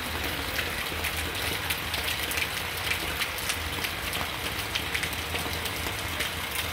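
Heavy rain falling steadily, an even hiss dotted with many small ticks of drops, with water spouting from a roof gutter onto the ground.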